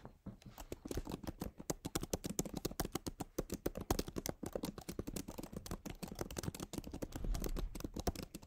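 Steady typing on a computer keyboard, a quick run of keystrokes several a second that stops abruptly near the end.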